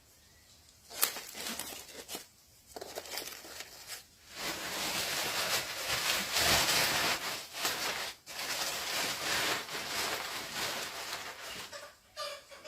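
Rustling and crinkling noise with scattered small knocks, starting about a second in and growing denser and steadier after about four seconds.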